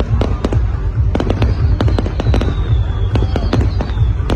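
Aerial fireworks display: rapid sharp bangs and crackles over a continuous low booming from shells bursting, with a faint descending whistle through the middle.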